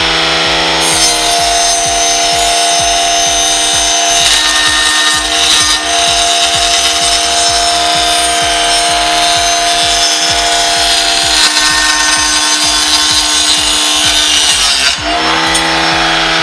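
Homemade table saw, its 775 DC motor spinning a 4-inch alloy circular saw blade through wood. The motor's steady whine runs throughout; the hiss of the cut starts about a second in and stops near the end, when the blade runs free again.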